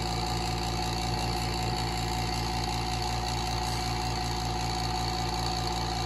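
A/C vacuum pump running steadily with a fast, even pulsing hum, evacuating a car's air-conditioning system through the gauge manifold before it is charged with refrigerant.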